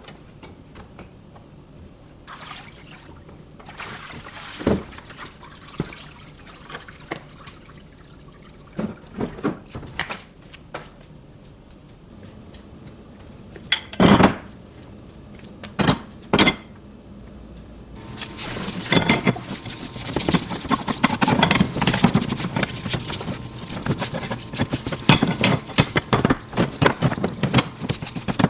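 Scattered knocks and clatter of hard parts being handled, then from about two-thirds of the way in a continuous busy splashing and sloshing of liquid, as when parts are washed or scrubbed in a bath.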